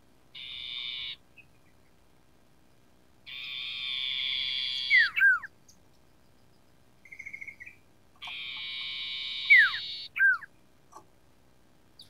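Common iora calling: three long rattling trills, the second and third each ending in two sharp down-slurred whistles, which are the loudest notes. A short stuttering run of lower notes comes between them.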